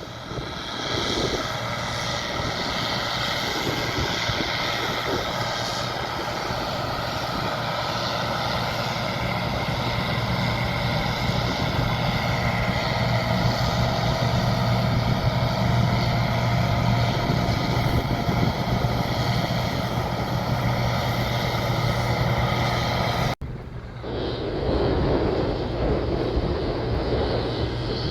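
Combine harvester running steadily at working speed: a constant engine drone with a low hum and several steady whining tones. It breaks off sharply about 23 seconds in and picks up again as a similar drone.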